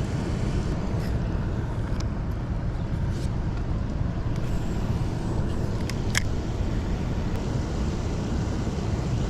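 Steady low rumbling noise, with a few faint ticks, the clearest about six seconds in.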